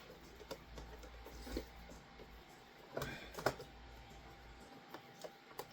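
Faint handling noise of a screwdriver driving a mounting screw for a Nissan Murano console's aluminum latch assembly into the plastic: scattered light clicks and soft scrapes as the screw is worked in and the bracket is shifted to sit flush, with two sharper clicks about three and a half and five and a half seconds in.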